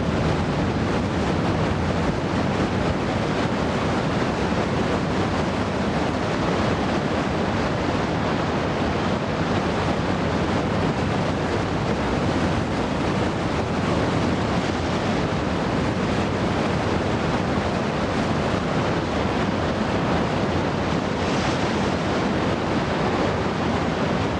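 Heavy whitewater rapids rushing loudly and steadily, an unbroken wash of churning water.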